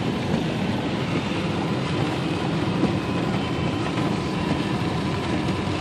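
Car driving on a wet road, a steady low rumble with a hiss over it, heard from inside the car.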